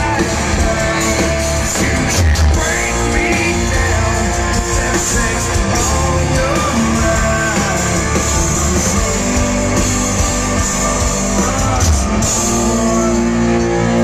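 Rock band playing live at full volume, with electric guitars, drums and a singer's voice, heard from within the crowd.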